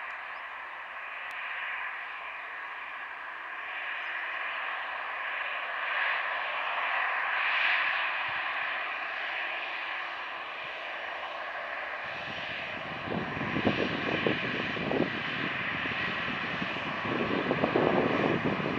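Airbus A320's twin CFM56 turbofan engines: a steady high whine at low thrust while the jet turns on the runway. About twelve seconds in, a louder, uneven low rumble joins as thrust comes up for the takeoff roll.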